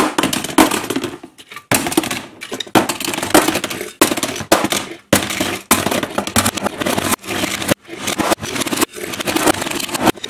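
Die-cast toy cars being rolled along a hard ledge and dropped into a plastic bin, one after another: about eight bursts of wheel rattle and scraping, each a second or so long, with sharp clatters of metal cars landing on plastic.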